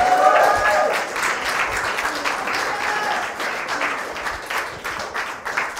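Studio audience applauding, a steady patter of many hands clapping, with voices calling out over it, most clearly in the first second.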